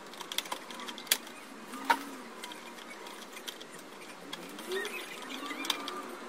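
A handful of sharp clicks and taps from the plastic and metal parts of a flat-screen LED TV being handled during reassembly. Most come in the first two seconds, with a couple more later.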